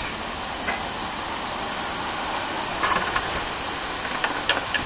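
Steady background hiss, with a few faint clicks and knocks.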